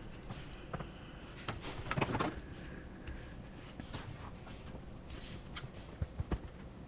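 Marker strokes scratching along sheetrock wall while a cut line is drawn, with light taps and handling knocks; the loudest scratch comes about two seconds in, and a few sharp taps follow near the end.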